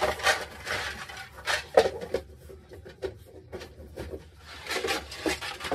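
Rummaging through things on a closet floor: a run of rustles, light knocks and clatters in separate bursts, the loudest about two seconds in.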